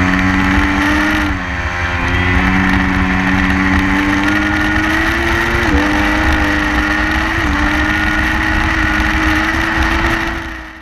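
Sport motorcycle engine at high revs, heard onboard at track speed. Its pitch steps down sharply and climbs again at each upshift: about a second and a half in, just before six seconds and at about seven and a half seconds. Wind noise rumbles underneath, and the sound fades out at the very end.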